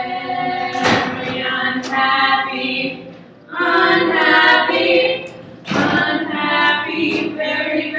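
Several women singing a song together, in sustained phrases with brief pauses between them.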